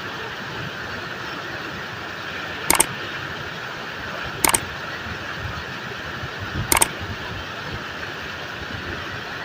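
Waterfall rushing steadily, with three sharp double clicks about a second and a half to two seconds apart near the middle.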